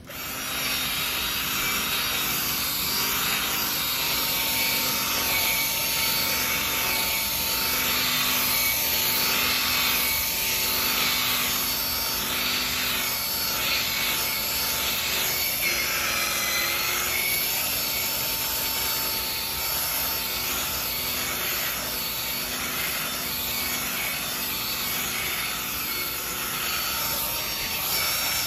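Cordless drill spinning a round scrub brush against fabric upholstery: a steady motor whir with a scratchy scrubbing swish that swells and fades about once a second as the brush is worked over the cushion, agitating cleaning solution into the soiled fabric before extraction.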